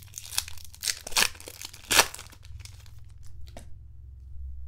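A foil trading-card pack wrapper being torn open and crinkled, with the sharpest rips about one and two seconds in, then quieter rustling as the wrapper is handled.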